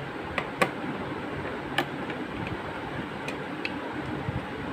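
Screwdriver backing screws out of a DVR's sheet-metal case: a few scattered sharp metallic clicks and ticks, about five, over a steady background hiss.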